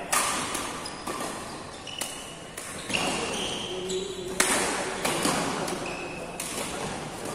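Badminton doubles rally: rackets striking the shuttlecock in a quick, irregular string of sharp cracks, with a few short squeaks of shoes on the court floor.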